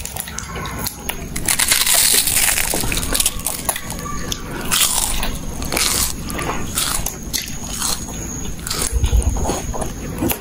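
Two children biting into and chewing fried chicken rolls, with repeated, irregular crunches.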